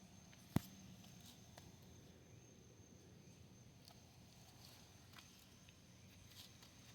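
Near silence: faint outdoor background with a steady high-pitched whine, a single sharp click about half a second in, and a few faint ticks after it.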